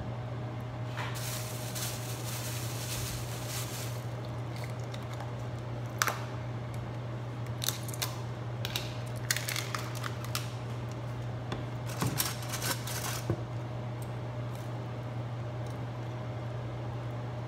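Small plastic containers and packaging handled and opened by hand, giving scattered clicks, taps and rustles, over a steady low hum.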